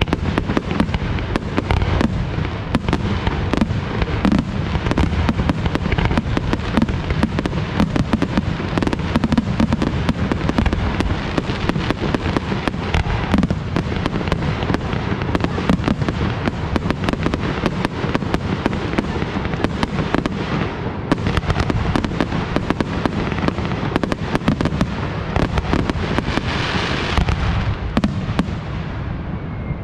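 Fireworks display: a dense, unbroken barrage of aerial shell bursts and crackling, many reports every second. A stretch of hissing crackle stands out near the end.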